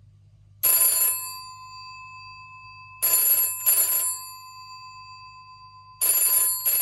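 Old black rotary-dial telephone's bell ringing: one short ring about half a second in, then two double rings (brr-brr) about three seconds apart, the bell tone hanging on faintly between them.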